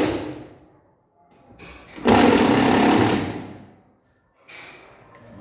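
A power tool running in two bursts: the first dies away just after the start, the second cuts in about two seconds in, holds for about a second and a half and then fades out.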